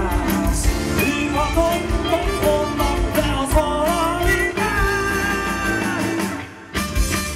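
Live rock band playing, a male singer over electric guitar and drums. The music drops out briefly near the end, then comes back in.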